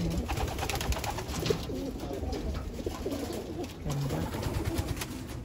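A loft full of racing pigeons cooing together, many overlapping low coos at once, with scattered light clicks.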